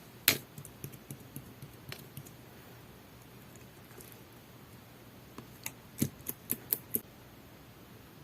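Sky-blue pearl slime with a jelly texture being pressed and worked by hand, giving sharp little clicking pops of trapped air. There is one loud pop right at the start and a few soft ones after it, then a quick run of about six clicks near the middle.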